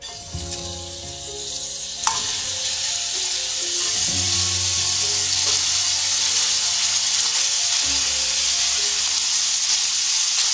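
Raw diced chicken breast sizzling in hot olive oil in a frying pan as pieces are laid in with tongs, the sizzle growing louder over the first four seconds as more pieces go in, then holding steady. A single sharp click sounds about two seconds in.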